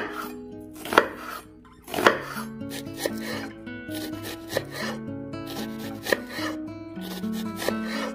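Kitchen knife cutting an onion on a wooden cutting board: three separate cuts about a second apart, then quicker chops of about two or three a second as it is diced. Soft background music plays underneath.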